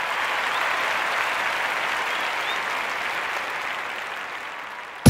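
Crowd applauding, a dense, even clapping that gradually dies down toward the end.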